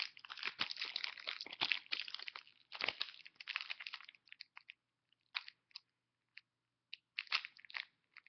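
Foil Pokémon booster pack being crinkled and torn open: dense crackling for about four seconds, then a few scattered crackles with short pauses between them.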